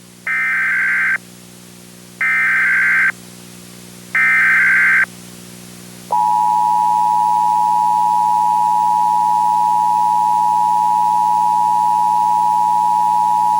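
Emergency Alert System SAME header, three short screechy data bursts about two seconds apart, followed about six seconds in by the long, steady two-tone EAS attention signal, over a faint low hum. Together they mark the start of an emergency alert broadcast.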